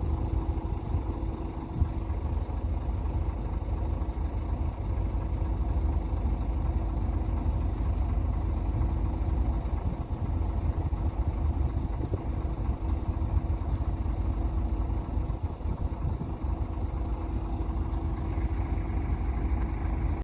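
An engine idling steadily: a low rumble with a constant hum over it.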